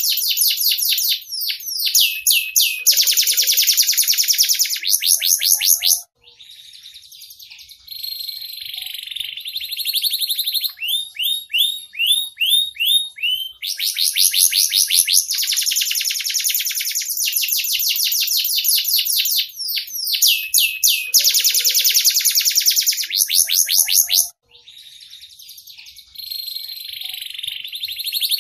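Domestic canary singing a long, loud song of rapid trills and rolls with runs of quick down-slurred notes, broken by short quieter gaps about six seconds in and again near the end.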